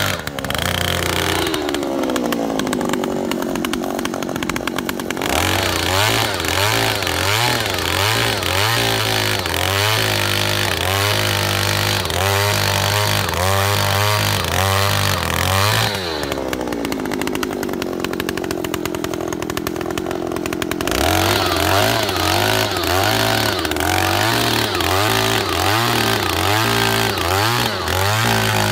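Oshima 2PS earth auger's 54 cc two-stroke engine running at high revs as the auger drills into sandy soil. Twice, near the start and about halfway through, it throttles down to a slow idle with falling pitch for about four seconds, then revs back up to drill the next hole.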